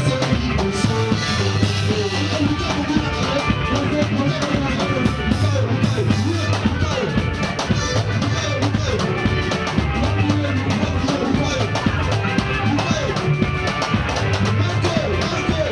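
Live church praise band: several singers on microphones over electric guitar and drum kit, playing with a steady beat.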